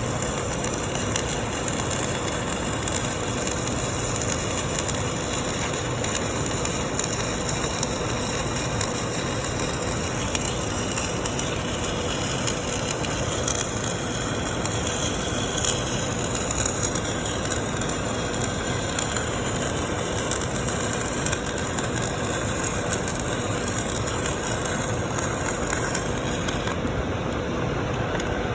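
Stick-welding arc burning on a 6013 electrode as a bead is laid: a steady, even crackling sizzle that holds without a break.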